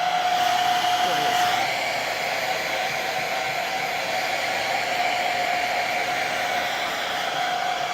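Blu turbo ionic hair dryer running on its turbo ions setting: a steady rush of air with a steady whine, a little louder in the first second or so.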